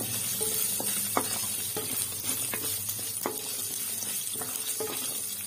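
Small onions (shallots) and whole spices sizzling in hot oil in a kadai, with a wooden spatula scraping and knocking against the pan in repeated strokes as they are stirred and sautéed.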